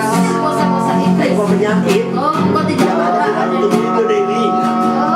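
Music led by guitar, with long held notes, a few of which slide in pitch.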